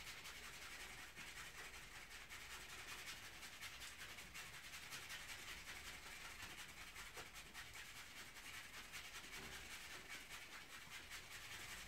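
A paintbrush twirled back and forth between gloved palms inside a tub: a faint, steady rubbing with fine rapid ticking, as turps is spun out of the bristles of a hardened brush being cleaned.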